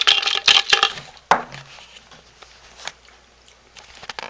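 A jar holding live insects being handled and shaken. A quick run of rattling clicks and knocks fills the first second, with one sharper knock soon after, then only a few faint taps.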